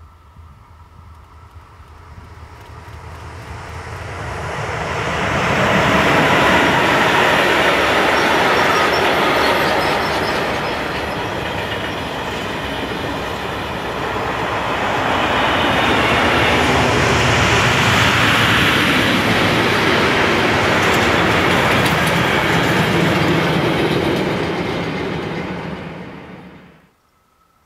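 Freight train hauled by an SBB Cargo Ae 6/6 electric locomotive passing close by. It grows louder as it approaches, then the wagons' wheels run steadily over the rails for about twenty seconds, and the sound cuts off suddenly near the end.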